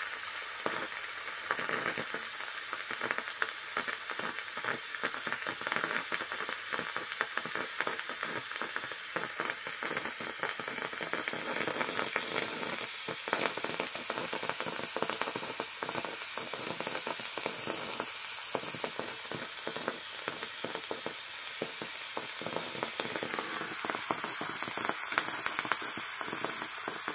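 Hot charcoal burning fiercely in molten potassium nitrate inside a glass test tube: a steady hissing sizzle, thick with fine crackles. This is the nitrate rapidly oxidising the carbon in a strongly exothermic reaction.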